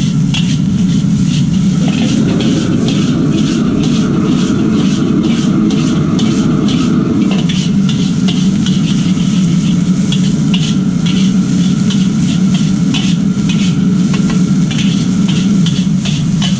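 Metal spatula scraping and clinking against a carbon-steel wok as fried rice is stir-fried and tossed, a few strokes a second, over the steady low roar of a high-output gas wok burner.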